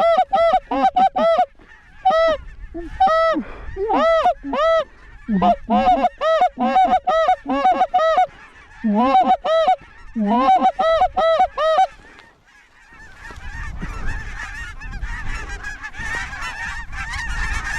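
Goose honks and clucks, loud and close, in rapid bursts of short calls broken by brief pauses. About thirteen seconds in, they give way to a steadier din of many geese calling over low wind rumble.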